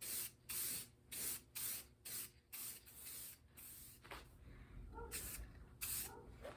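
Repeated short bursts of spraying, about two a second at first and then fewer and fainter.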